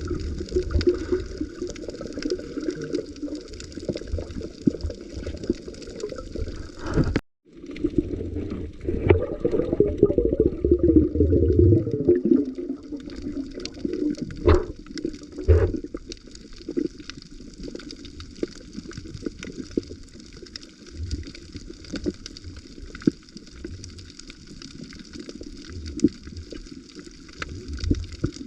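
Underwater sound on a coral reef: a steady water wash and gurgling around the camera, with many faint clicks. It cuts out briefly about seven seconds in.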